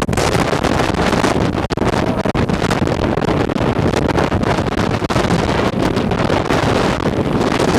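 Tropical-storm winds buffeting the microphone in a loud, continuous, gusty rumble, with two momentary drops about two seconds in.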